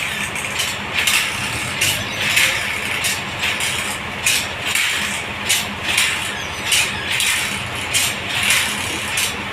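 Sawmill machinery running: a steady low engine hum with a hissing rasp that swells and fades one to two times a second.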